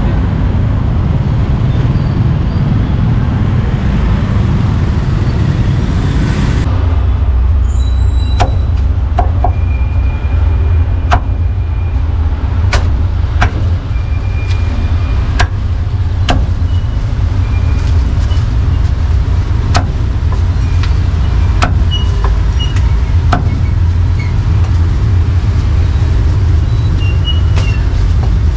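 Meat cleaver chopping roast duck on a round wooden chopping block: single sharp knocks every second or two, starting several seconds in. Underneath runs a steady low rumble of street traffic.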